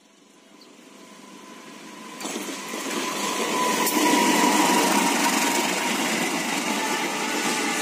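Diesel-electric locomotive approaching with a train: engine running and rolling noise grow louder for about four seconds, then hold steady, with a faint steady whine through it.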